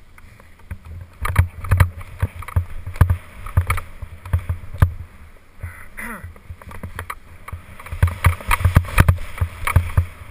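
Skis running and turning over packed, bumpy snow, picked up through a body-mounted camera as a string of irregular low thumps and scrapes.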